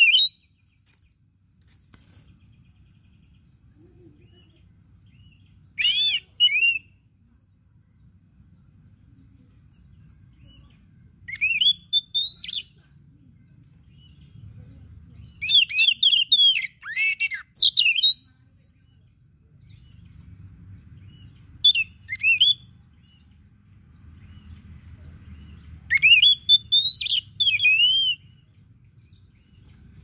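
Male oriental magpie-robin singing: six short phrases of varied whistled notes that sweep rapidly up and down, spaced a few seconds apart. The longest phrase runs about two and a half seconds, near the middle.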